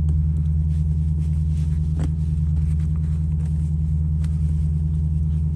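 Lexus GS F's V8 engine idling, a steady low rumble heard from inside the cabin, with a faint click about two seconds in.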